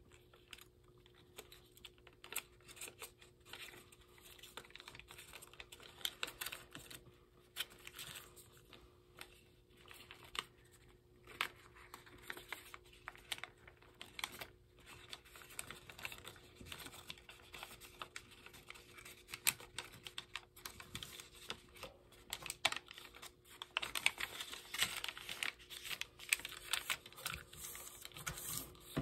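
Sheet of origami paper being folded by hand: crisp crinkling, rustling and small clicks as creases are pressed and flaps opened, busier and louder near the end.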